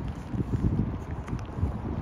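Wind buffeting the microphone, an uneven low rumble that swells in gusts.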